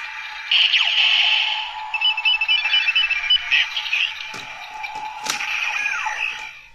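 Electronic sound effects and music from a Kamen Rider Ziku-Driver toy belt with a Ridewatch in it, through its small built-in speaker, including a run of short beeps. Sharp plastic clicks come about four and five seconds in.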